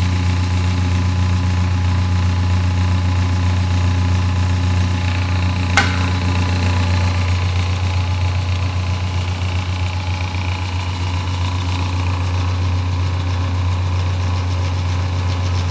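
Jorgensen chip conveyor's three-phase electric drive motor running steadily with a strong low hum and a few steady higher tones. There is a single sharp click about six seconds in.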